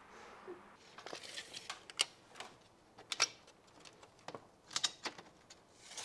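Scattered light clicks and knocks at irregular intervals, a dozen or so, as of objects being handled and moved about.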